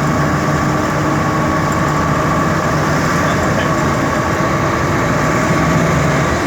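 An engine running steadily, a constant hum with a few fixed tones over a dense rumble.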